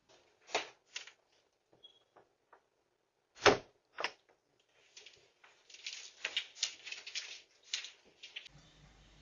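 A string of irregular knocks and clatters, the loudest a single hard knock about three and a half seconds in, with a denser run of them towards the end, heard through a doorbell camera's microphone.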